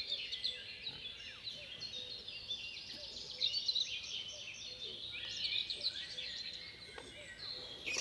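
Many small birds chirping at once: a dense, overlapping chatter of short high chirps that keeps on throughout.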